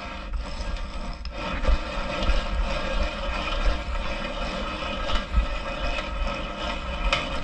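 Old hand-cranked drill turning steadily, its gears whirring and the steel bit grinding slowly through steel.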